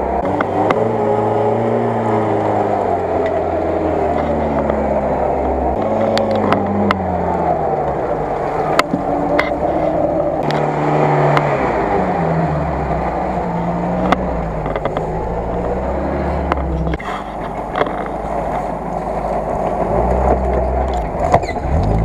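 UAZ off-roader's engine revving up and down under load as it crawls up a steep muddy slope, with scattered sharp knocks and cracks.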